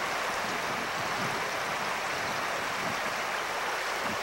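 River water running over rocks: a steady, even rushing.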